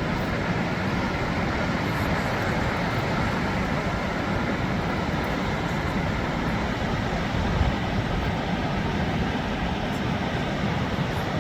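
Undine Falls waterfall roaring steadily, a dense rushing of falling water, heaviest in the low rumble. There is a brief low bump about seven and a half seconds in.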